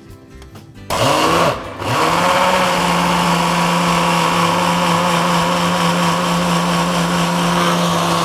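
Small electric food processor blending steamed pumpkin into a puree. The motor starts about a second in, stops briefly, then starts again, winds up in pitch and runs steadily.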